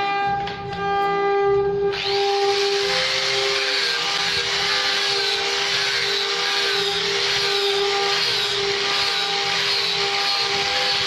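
Electric angle grinder fitted with a sanding disc, whining steadily, then pressed onto the carved wood about two seconds in, adding a loud sanding hiss. The motor's pitch wavers as the disc is worked over the curved surface.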